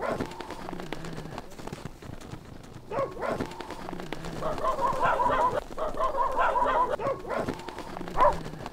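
An animal calling: short pitched cries, then a longer wavering call in two parts in the middle, then another sharp cry near the end.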